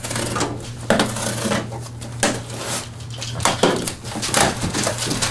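Cardboard box being opened by hand: a blade scraping along the packing tape, then the flaps tearing and pulling open, making a string of irregular scrapes, knocks and rustles. A steady low hum runs underneath.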